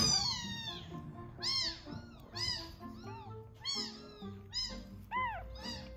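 A neonatal kitten of about 85 g crying over and over while being syringe-fed milk. There are about ten sharp, high-pitched cries, each rising then falling in pitch, and the loudest, longest one falls in pitch at the very start. The kitten cries instead of drinking, too eager for the milk to settle into feeding.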